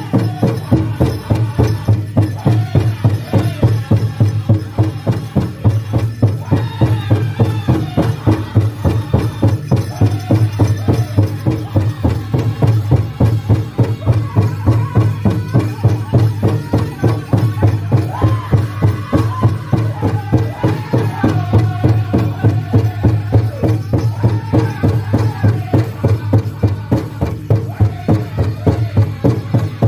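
Powwow drum group singing a chicken dance song: several voices singing together over a large drum struck in a steady, fast beat.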